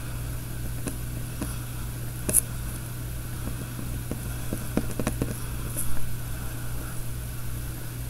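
Pen tip making small strokes and taps on paper, heard as scattered, irregular faint ticks over a steady low hum.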